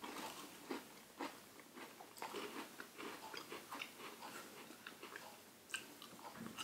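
Faint, irregular crunching and chewing of Hello Panda chocolate-filled biscuits being eaten.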